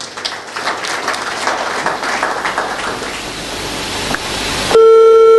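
Audience applauding, building steadily. Near the end it is cut off abruptly by a loud, steady electronic beep lasting about a second, like a telephone line tone at the start of a played phone recording.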